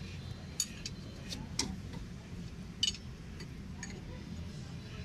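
Steel spanner clinking against a truck's front steering knuckle as a bolt is worked: about seven sharp metal ticks at uneven intervals, over a low steady hum.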